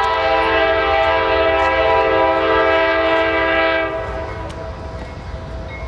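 Locomotive air horn sounding one long blast, a chord of several tones together, that cuts off about four seconds in, over a low rumble.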